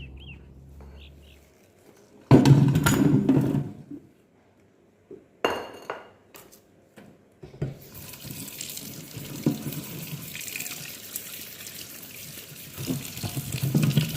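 A loud handling clatter a couple of seconds in, then a kitchen tap turned on about halfway through and running steadily into the sink as produce is rinsed under it.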